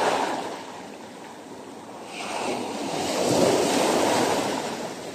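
Rough sea waves washing in and breaking over rocks at the water's edge. One wash fades during the first second; another swells from about two seconds in and is loudest near three and a half seconds before easing.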